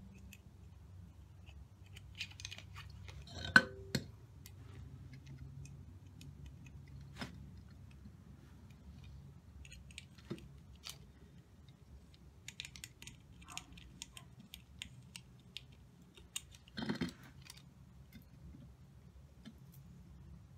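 Small metal clicks and taps as Allen set screws and an Allen key are handled and worked into a coilover sleeve. There is a sharper knock about three and a half seconds in and a short metallic rattle near the end.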